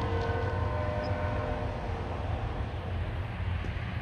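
Diesel locomotive horn holding a chord that fades out about a second and a half in, over a steady low rumble.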